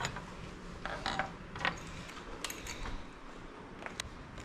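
Scattered light clicks and rattles of drill bits and a drill being handled while a bit is swapped for a bigger one.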